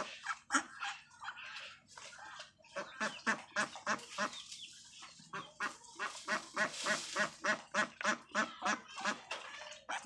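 A flock of domestic ducks quacking: scattered, overlapping harsh quacks, then a steady run of about three quacks a second through the second half.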